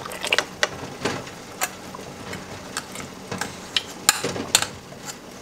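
Metal spoons clinking and scraping against a stainless steel stockpot, a metal canning funnel and a glass jar as hot pickle slices are spooned into the jar and packed down: scattered light clinks and taps.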